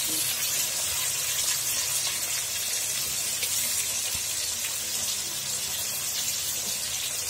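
Fish steaks shallow-frying in hot oil in an iron wok (kadai), a steady sizzle.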